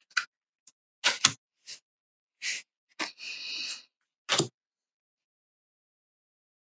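Oracle cards being handled and sorted: a run of short sharp taps and snaps as cards are picked up, squared in the hand and set down, with a brief slide of card against card about three seconds in.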